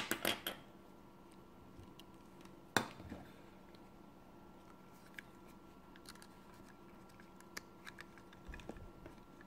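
9-volt batteries being handled and clipped together by their snap terminals: a quick cluster of clicks at the start, one sharp click about three seconds in, then scattered light ticks.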